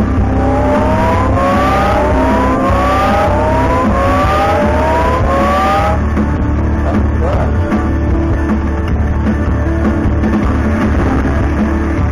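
Timber Wolf Grand video slot machine's electronic game music during its free-games bonus. Over the first half, a run of overlapping rising sweeps starts about once a second and stops suddenly about halfway through. Steady game music continues after that.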